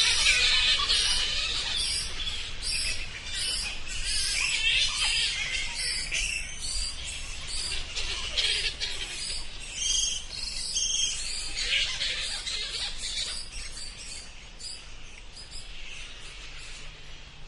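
A group of bats calling: many short, high-pitched calls overlapping in a dense chatter, thinning and growing quieter over the last few seconds.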